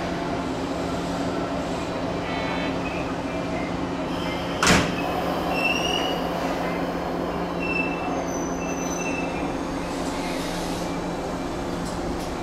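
JR West 103 series electric train standing at the platform with a steady low hum, and a single sharp loud clunk about five seconds in as its doors shut.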